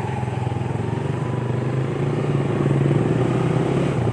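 Motorcycle engine running steadily while riding along a bumpy dirt road at night.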